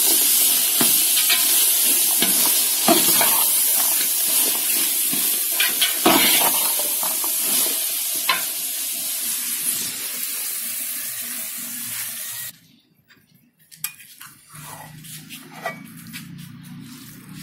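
Chicken and pea keema sizzling in a pan while a utensil stirs it, with repeated scraping strokes against the pan. About two-thirds of the way through, the sizzle cuts off suddenly, leaving a few clicks and a low hum.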